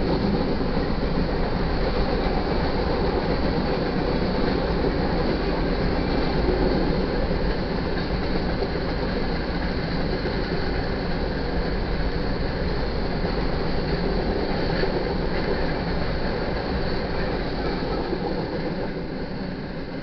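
Freight cars of a long manifest train rolling past a grade crossing: a steady rumble of steel wheels on rail that eases off a little near the end.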